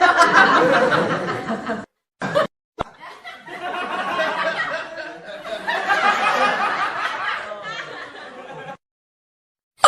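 Comedy laughter sound effects: a burst of laughing lasting about two seconds, a brief snippet, then a longer stretch of laughter of several seconds, with short silent gaps between the clips.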